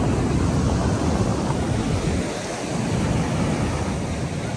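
Rough sea surf breaking and washing in foam against a concrete seawall ramp, a steady rushing that eases briefly about halfway through, with wind buffeting the microphone.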